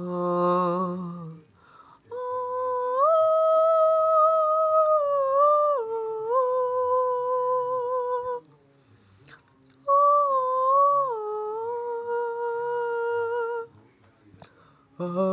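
A boy singing in a mock-operatic style: after a brief low-voiced bit, two long, high held notes that step up and down in pitch, with short pauses between them.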